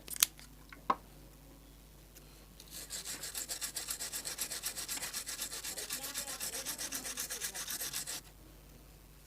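Two sharp clicks, then about five seconds of fast, even scrubbing, roughly nine strokes a second: the keypad contacts on an iTel keypad phone's circuit board being rubbed clean with thinner so the dead 7 and star keys work again.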